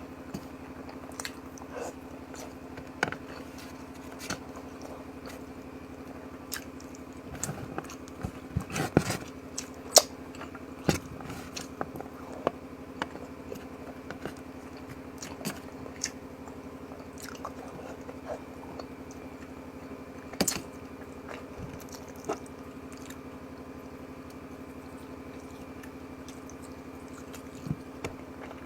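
A person eating ginataang tulingan, tuna stewed in coconut milk, close to the microphone: chewing and wet mouth smacks with scattered sharp clicks. The clicks come thickest about eight to nine seconds in, with another sharp one about twenty seconds in.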